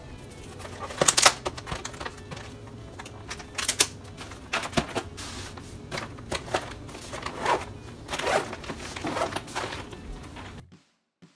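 Quick clicks, knocks and rustling of a plastic bento box and an insulated lunch bag being handled, packed and closed, sped up to double speed. The sound cuts off suddenly near the end.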